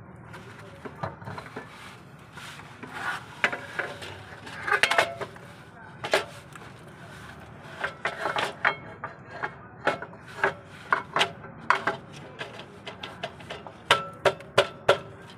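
Metal clinks and knocks as a clutch disc and pressure plate are shifted and seated by hand against a flywheel, some of them ringing briefly. A quick run of sharp knocks comes near the end.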